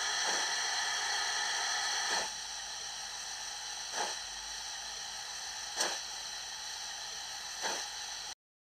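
Steam locomotive sound played by a Zimo sound decoder with a YouChoos sound project in a Hornby OO model of a GWR 61xx Large Prairie tank running on a rolling road: a steady steam hiss with a sharper chuff about every two seconds, the chuff rate not yet adjusted to match the turning wheels. The sound cuts off suddenly near the end.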